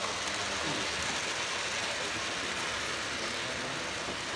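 Model train running past along its track, a steady whirr of its motor and wheels.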